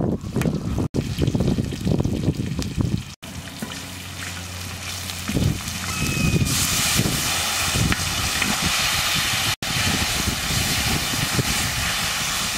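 Wooden spatula stirring and scraping chillies, lemongrass and herbs around a large metal wok over a wood fire, with the liquid in the pan sizzling and bubbling. The sound breaks off abruptly three times.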